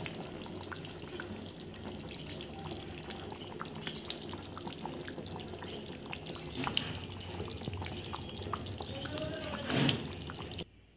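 Chicken and potato curry bubbling as it simmers in the pan, a steady crackle of small pops in the thick gravy; it cuts off suddenly just before the end.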